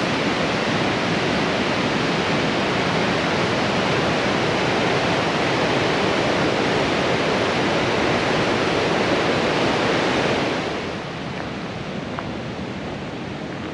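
A powerful mountain waterfall, white water cascading over boulders, makes a steady, dense rushing. About ten seconds in the rushing drops to a quieter level.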